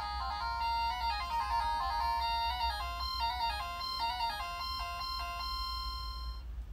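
A simple electronic melody of clean beeping notes stepping up and down several times a second, with a few longer held notes, stopping abruptly near the end. A steady low hum runs underneath.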